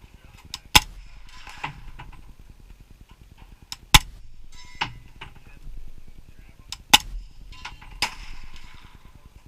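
Gunshots at a shooting range: three loud shots about three seconds apart, with several fainter shots between them.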